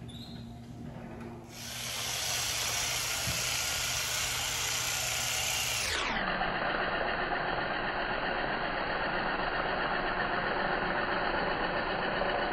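Handheld percussive massage gun running steadily against the thigh, starting about a second and a half in.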